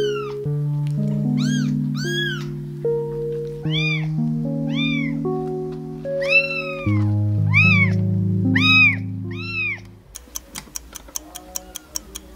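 Tiny kitten mewing over and over, about a dozen short, high cries that rise and fall, over soft background music with held chords. The mews stop about ten seconds in and the music turns to light, evenly spaced ticking notes.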